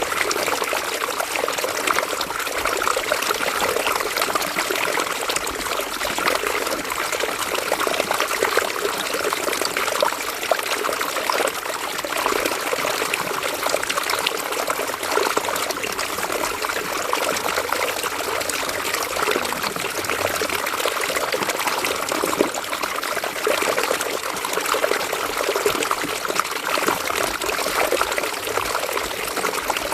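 River water flowing over rocks, a steady babbling and trickling with many small splashes.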